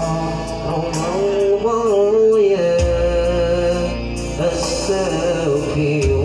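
A man singing a slow, ornamented melody with long held notes over music with a low, steady bass.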